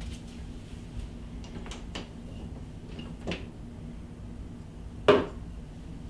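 Handling of interior door knob hardware: a few light clicks and taps, then one louder clack about five seconds in, over a steady low room hum.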